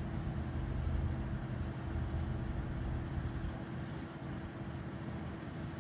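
Jet aircraft engine noise at an airport: a steady low rumble with a constant hum.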